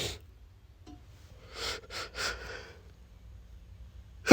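A man's short sniffs and breathy inhalations through a congested, allergy-irritated nose, three or four quick ones about two seconds in, as a sneeze builds without coming. A loud sneeze breaks out suddenly at the very end.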